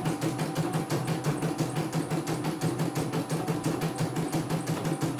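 CNY E900 embroidery machine stitching out a design: the needle bar strikes in a rapid, even rhythm over the steady hum of its motor. It is a test run after repair, stitching smoothly without skipped stitches.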